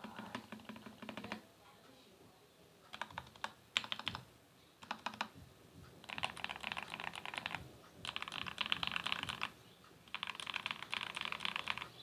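Royal Kludge RK68 mechanical keyboard with Krytox 205g0-lubed KTT Red Wine linear switches being typed on: fast runs of keystrokes in about six bursts, the last three longer and louder, with short pauses between.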